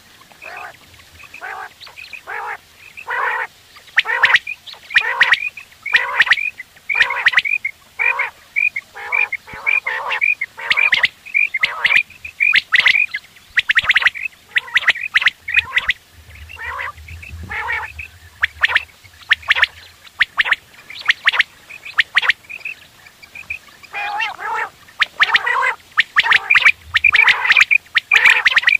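Several caged common quails (batair) calling over and over: a quick run of short, high-pitched notes mixed with lower-pitched calls, with brief pauses about halfway through and again a little later.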